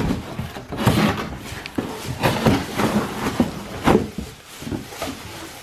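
A cardboard shipping box being opened and a plastic-wrapped toilet stool pulled out of it: cardboard flaps scraping and the plastic bag rustling in irregular bursts, loudest about four seconds in.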